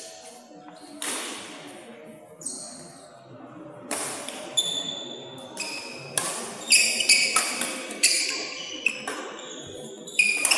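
Badminton rally in a large, echoing hall: sharp smacks of rackets hitting the shuttlecock, coming thick and fast from about four seconds in, with short high squeaks from players' shoes on the court floor.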